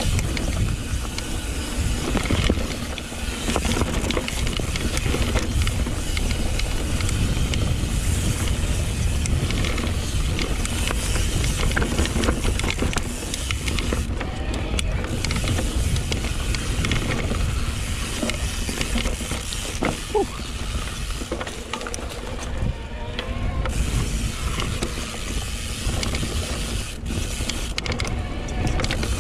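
YT Decoy electric mountain bike ridden along dirt singletrack: continuous clatter and rattle of the bike over the trail, with tyre and rushing noise.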